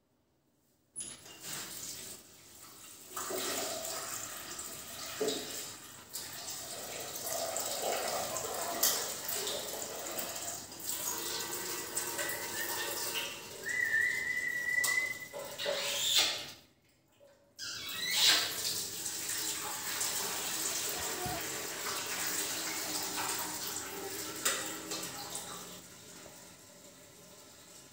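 Indian ringneck parakeet giving a short rising whistle about halfway through, over a steady rushing noise like running water that drops out briefly near the two-thirds mark and fades near the end.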